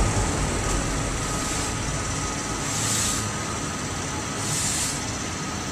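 Industrial machinery running steadily: an even rumble and hiss with a faint high steady tone, and a short hiss swelling up about every two seconds.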